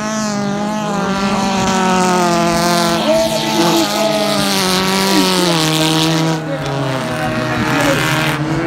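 Stock car engines running hard as cars pass through a turn on a dirt track, the engine pitch holding steady and then dropping somewhat a little past the middle.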